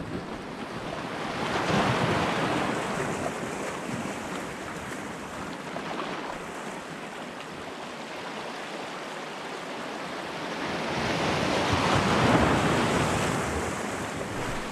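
Small sea waves breaking and washing over a rocky shoreline. The wash swells twice, about two seconds in and again near the twelve-second mark.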